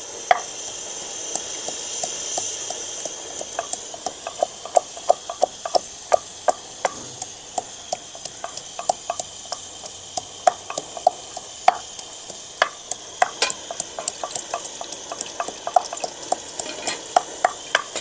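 Wooden pestle pounding ginger and garlic in a mortar: irregular knocks, about two to three a second, each with a short hollow ring. A steady high hiss runs underneath.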